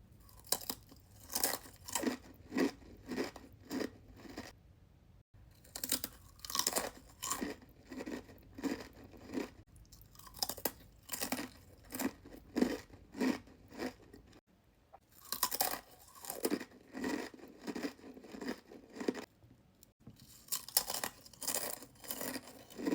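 Crunchy chewing of Takis rolled tortilla chips, close to the microphone, about two crunches a second with a few short pauses.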